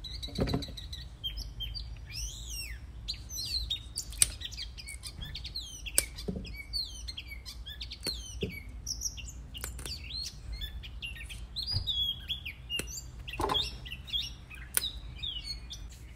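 Small birds chirping and singing continuously, with a few sharp snaps scattered through as string beans are broken by hand. The cook says the day-old beans are no longer crisp.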